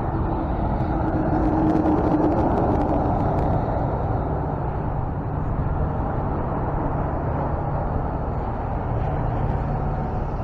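Ford F-550 flatbed tow truck's engine running steadily, a little louder about two seconds in.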